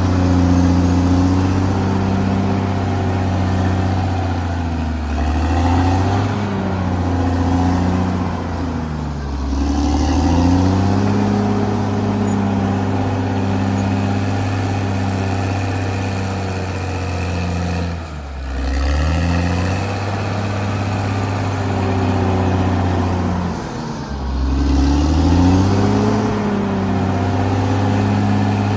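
Diesel engine of a Caterpillar D6R XL bulldozer running at working speed. Its pitch sags and climbs back about four times as the dozer takes load or changes throttle.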